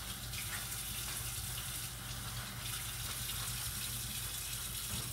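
Water running steadily from a tap, then cut off suddenly near the end.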